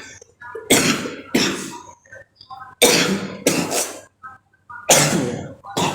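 A person coughing hard, a run of about seven harsh coughs with short pauses between them.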